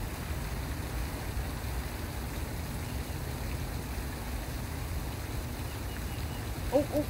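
Steady low outdoor rumble of background noise. Near the end comes a quick run of four or five short, low, pitched calls from an animal.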